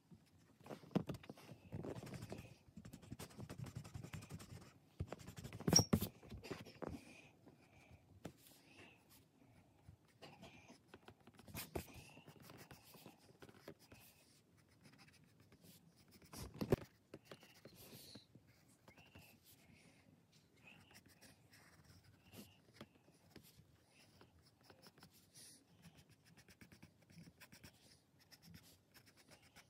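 HB graphite pencil scratching on paper in short sketching strokes, busiest in the first several seconds and lighter after. A couple of sharper knocks stand out, about six seconds in and again near seventeen seconds.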